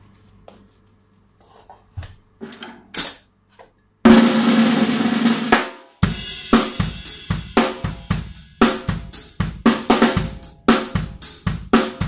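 Snare drum struck with wooden sticks: a few soft taps, then a loud burst that fades away over nearly two seconds, then a steady run of sharp strokes at about three a second.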